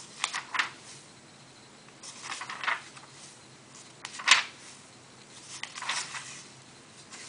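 Pages of a paperback book being turned by a small child's hand: four short bursts of paper rustling, the sharpest a crisp flick of paper a little past halfway.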